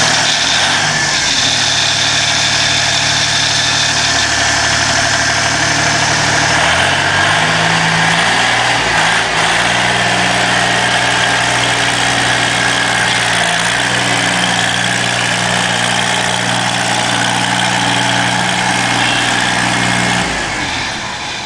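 YZD3.5 road roller's engine running steadily. About seven seconds in, its low note steps up a little, and it drops off shortly before the end.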